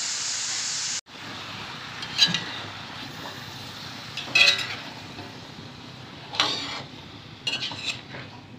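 Vegetables sizzling in a hot aluminium wok with a steady hiss, which breaks off abruptly about a second in. Then a quieter frying hiss with a metal spatula scraping and clinking against the wok about four times as the eggplant, squash and string beans are tossed.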